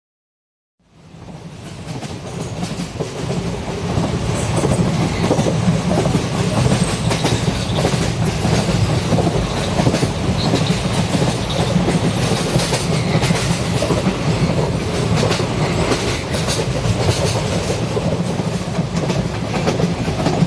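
Train running on rails, its wheels clickety-clacking over the rail joints. The sound fades in from silence during the first few seconds, then holds steady and loud.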